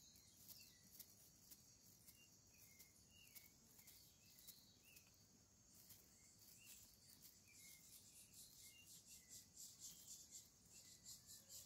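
Near silence, with a faint steady high insect chorus and scattered small bird chirps. From about halfway, a run of soft scratches at about three a second, getting a little louder, from the scraper uncapping the wax on a honeycomb frame.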